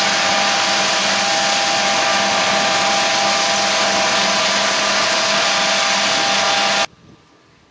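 John Deere S770i combine harvester running at work: a loud, steady machine whir with several steady whining tones. It cuts off abruptly about seven seconds in, leaving only a faint background.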